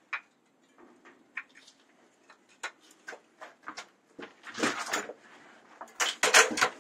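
Scattered light clicks and knocks of tools and parts being handled as an old boiler is taken apart, with two short bursts of louder clattering, one about two-thirds of the way through and one near the end.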